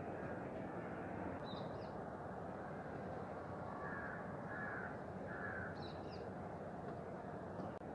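Three short animal calls in quick succession about four seconds in, with brief high chirps about a second and a half in and again near six seconds, over a steady outdoor background noise.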